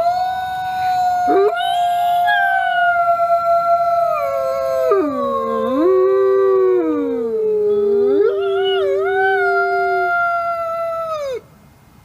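Recorded wolf-howl sound effect of a wave pool, played loud: several long wolf howls overlapping in a chorus, their pitches gliding up and down. It cuts off suddenly near the end.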